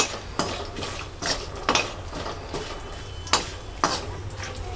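A metal slotted spoon stirring whole spices in a metal kadhai, knocking and scraping against the pan about six times, over a light sizzle of the spices frying in hot oil.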